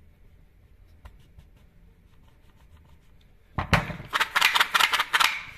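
Chainsaw recoil starter, its spring just rewound, being tried by pulling the starter rope: a few faint handling ticks, then about three and a half seconds in a loud quick rattle of rapid clicks, about seven a second, for under two seconds as the rope runs out and the pulley spins back.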